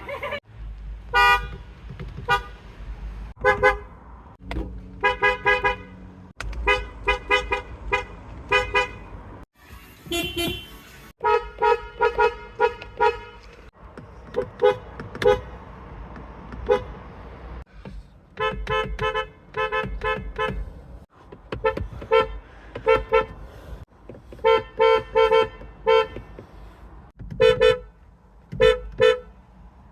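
Car horn tooted over and over in short blasts, mostly in quick runs of two to five with brief pauses between, over a low rumble.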